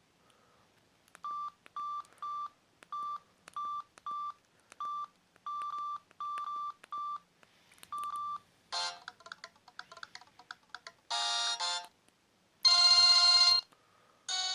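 Samsung X680V mobile phone's keypad beeping as its keys are pressed: about a dozen short, identical beeps, each with a key click. From about nine seconds in, short snatches of polyphonic ringtones start playing, the loudest a bright held chord near the end.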